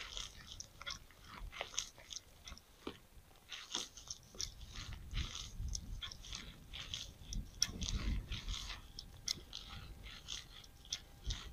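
Raindrops tapping irregularly and sharply on the camera's housing and the kayak, a quiet scatter of ticks over a low rumble.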